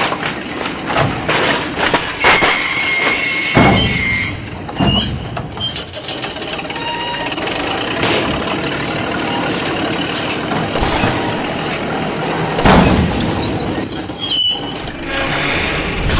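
Vehicle sound effects: a run of clicks and knocks, a high steady squeal about two seconds in, then a steady mechanical running noise broken by a few loud knocks.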